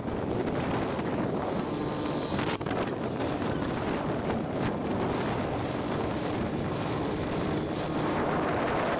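Steady wind rush on the microphone of a moving motor scooter, with the scooter's small engine humming faintly underneath.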